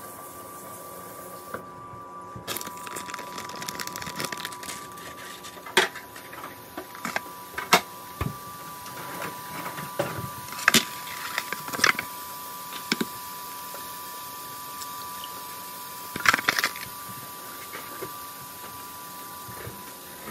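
Kitchen handling sounds while cooking: scattered sharp knocks and clicks as an egg carton and a glass bowl are set on a stone counter and an egg is cracked into the bowl, over a faint steady sizzle of bacon frying in a pan on the stove.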